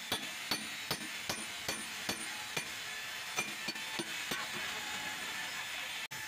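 Hand tools working on metal engine parts: sharp clicks about two or three a second, evenly spaced at first and then less regular, over a steady hiss.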